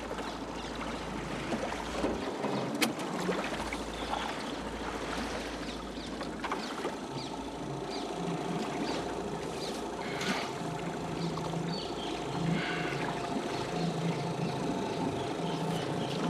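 A motorboat engine idling, a steady hum that is clearest in the second half, over the splash of kayak paddles in calm water and a few sharp knocks.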